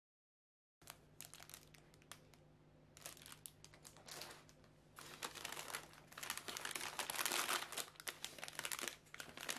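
Plastic snack wrapper crinkling as it is handled, starting about a second in and growing busier and louder from about halfway through.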